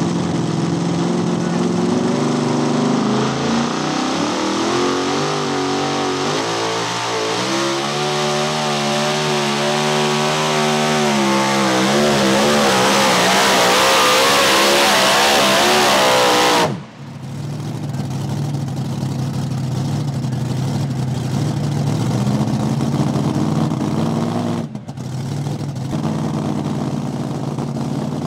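Supercharged, alcohol-fuelled big-block V8 of a super modified two-wheel-drive pulling truck, run at full throttle under load while it drags the weight-transfer sled. The engine note rises in pitch, wavers briefly, then climbs to a loud, high rev before cutting off sharply about two-thirds of the way in. After that an engine runs at lower, steadier revs.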